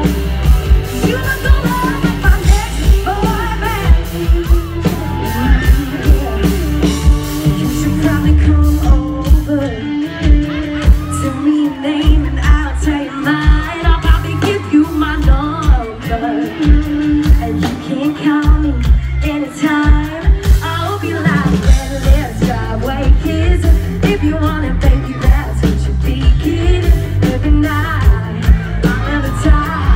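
Live band playing a country-pop song with a woman singing lead over a steady drum beat. The beat thins out for a stretch in the middle, then comes back full.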